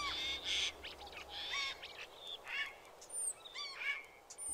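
Birds calling: a series of short chirps and arched whistled notes, one every second or so.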